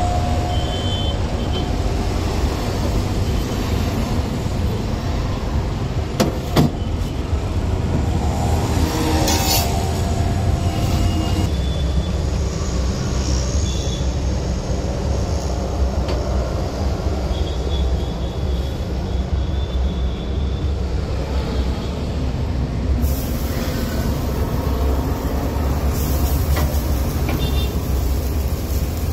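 Steady low rumble of outdoor background noise with faint voices. Two sharp clicks come about six seconds in.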